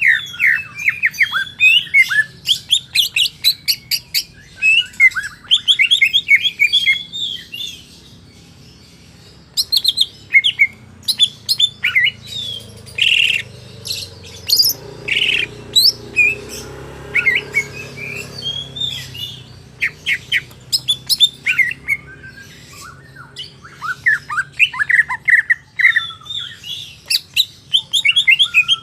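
Cucak ijo (green leafbird) singing: a long, varied run of rapid chirps, short whistles and trills, with a brief pause about eight seconds in.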